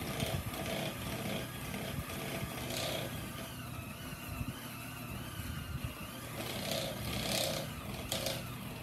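Electric hand mixer running steadily, its beaters working flour into a soft, thick butter-and-sugar cookie dough in a mixing bowl. A few brief louder scrapes come through, around three seconds in and near the end.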